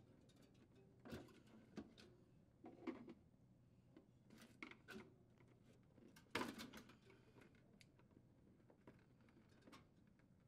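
Faint plastic clicks and rustles as the evaporator fan motor housing is handled and its wire harness connectors are unplugged, in a few separate short knocks. The loudest comes a little past halfway.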